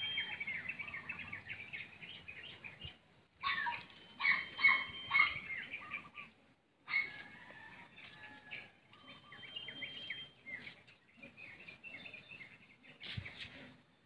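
Small birds chirping and calling, several at once, in quick short notes that come and go in bursts and cut out abruptly twice. There is a low thump near the end.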